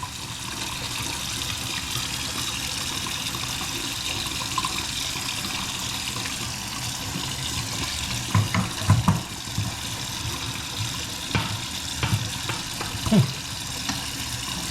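Water running steadily from a Moen cartridge faucet into a sink, with a few brief low murmurs about two thirds of the way in.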